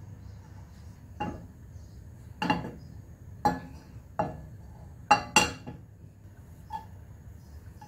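A nonstick frying pan clanking on the stove about seven times as it is tilted to spread the oil, sharp metal knocks with a short ring, the loudest two close together about five seconds in.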